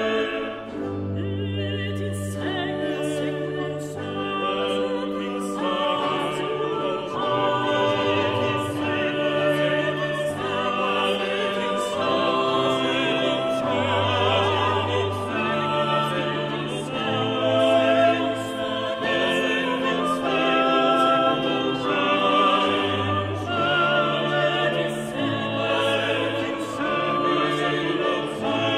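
Classical background music: operatic singing with wavering held notes over an orchestra.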